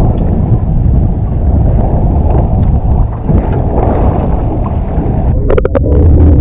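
Wind buffeting the microphone over the low rumble of boat engines and water at sea. A few sharp clicks come near the end.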